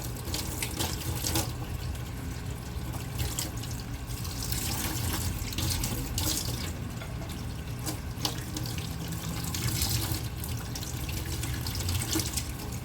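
Tap water running into a sink while strawberries are rinsed under it, with scattered light knocks and splashes.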